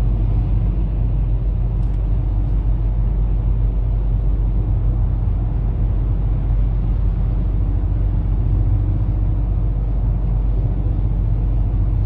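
Steady low rumble of engine and tyre noise heard from inside the cabin of a car driving along a motorway.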